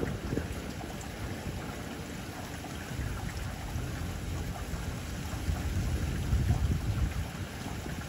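Wind buffeting the microphone outdoors: a gusting low rumble over a faint hiss, swelling to its loudest about five and a half to seven seconds in.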